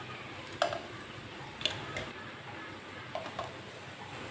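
About four light clicks and taps of a metal spatula against the frying pan and plate as fried sandwiches are lifted out onto the plate, the last two close together, over a faint steady hiss.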